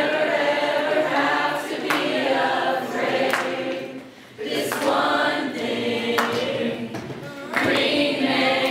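A group of teenage girls' voices singing together, with a short break about four seconds in before the singing picks up again.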